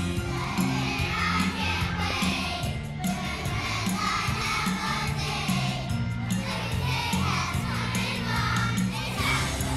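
Young children's choir singing together over an instrumental accompaniment with a steady bass line.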